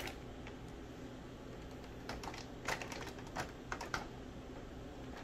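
Light, scattered clicks and taps of Brussels sprouts being dropped by hand into plastic meal-prep containers, about eight of them in the second half.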